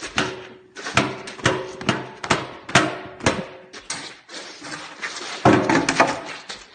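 Repeated hard banging, about two blows a second, each leaving a short ringing tone; the heaviest blows come close together near the end.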